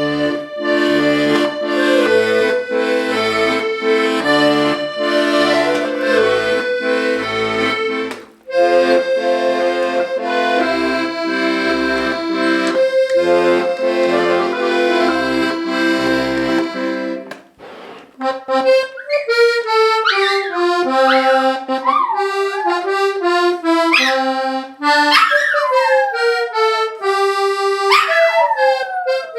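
Hohner Corona IIIR diatonic accordion playing a tune, with melody and chords over an alternating oom-pah bass, breaking off briefly about eight seconds in. After a short pause just past the middle, only the treble melody continues while a dog howls along in rising and falling glides.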